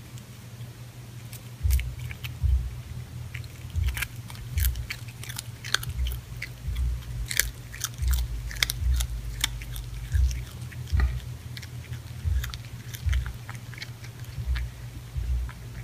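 A cat chewing and crunching up a large insect: irregular sharp crunches and clicks with soft low thuds, starting about two seconds in.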